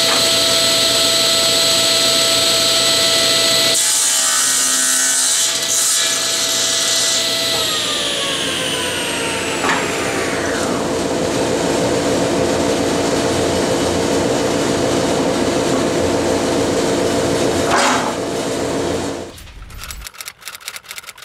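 General 350 table saw running at full speed with a steady whine, cutting through a hardwood mallet blank about four seconds in; a few seconds later it is switched off and its whine falls away as the blade winds down. A steady lower hum carries on until near the end, then stops, and a quick run of typewriter-like clicks follows.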